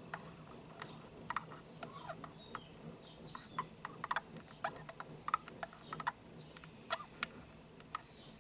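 Miele W1 front-loading washing machine in its wash phase, drum turning the wet laundry: water splashing and sloshing in the drum, heard as many irregular sharp clicks and splashes over a faint low steady hum.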